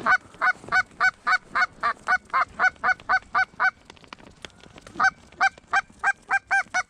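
Goose honking in a fast, evenly spaced run, about three or four honks a second. The run stops for about a second and a half partway through, then starts again.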